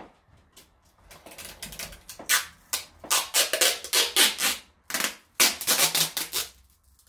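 Adhesive tape being pulled off a roll in a run of short, loud rips, coming in quick bursts for several seconds and stopping near the end.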